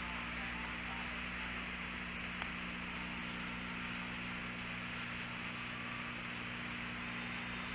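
Steady hiss and hum of the Apollo air-to-ground radio channel between transmissions, with one faint click about two and a half seconds in.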